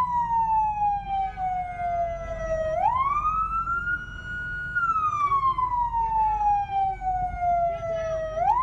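Police car siren on a slow wail, gliding down in pitch over about four seconds and then sweeping quickly back up, twice, over low street rumble.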